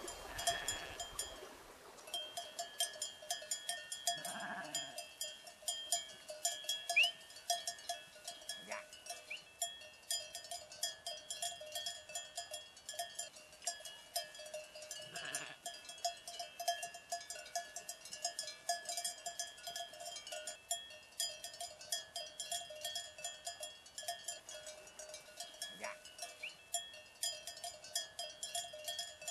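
Bells of a grazing sheep flock clinking and ringing continuously, with a few short bleats now and then.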